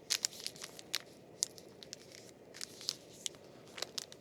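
An instant coffee sachet being torn open and crinkled in the hands: an uneven run of short, sharp crackles and rips.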